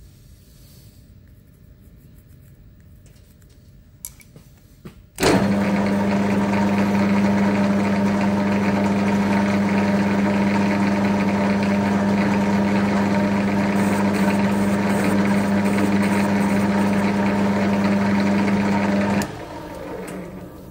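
Metal lathe switched on about five seconds in, running steadily with a strong hum while a light crowning cut is taken across a steel roller. It is switched off about nineteen seconds in and winds down.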